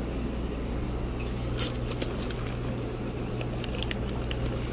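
Plastic fish bags and packing film crinkling and rustling as a hand reaches into a shipping box to pull a bag out, in short bursts about one and a half seconds in and again near the end. Under it, a steady low electrical hum.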